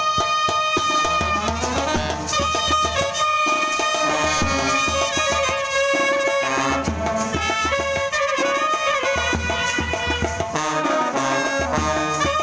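Indian brass band playing a tune: trumpets and clarinets carry the melody over sousaphone bass and a regular bass drum beat.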